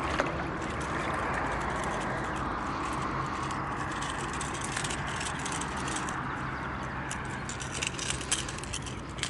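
A freshly landed pompano flapping on a concrete pier, its metal lure and hooks clicking and clattering against the stone in quick irregular bursts. The bursts start about a third of the way in and are thickest near the end, over a steady rushing background.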